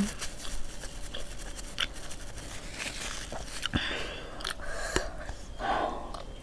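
Close-miked eating sounds: a few soft clicks and taps as chopsticks and a small bowl are handled, then a bite into food near the end.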